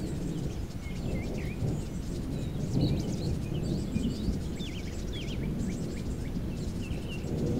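Birds chirping with many short calls scattered throughout, over a steady low rumbling noise.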